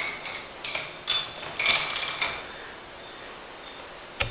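Steel wrenches clinking and scraping against a KYB SSS motorcycle fork as they are fitted onto its nut, one with a brief metallic ring. The clinks and scrapes come in the first two seconds, with a single sharp click near the end.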